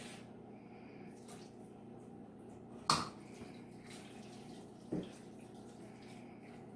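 Thick honey-and-soy sauce poured from a skillet onto chicken in a glass baking dish, pouring and dripping softly. Two short knocks of the pan against the glass dish, the louder about three seconds in and a lighter one about five seconds in, over a steady low hum.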